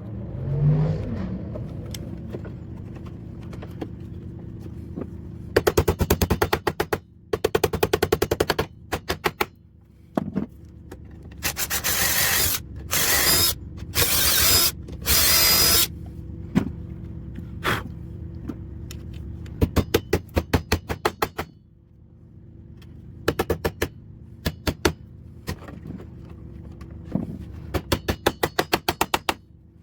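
Power driver backing screws out of the door panel in a series of short bursts, several of them a fast rattle, with a few longer, louder runs in the middle.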